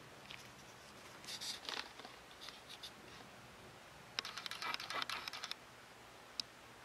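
Short bursts of soft crackling and clicking over faint room hiss: one cluster after about a second, a weaker one near three seconds, the loudest stretch in the middle, and a single click near the end.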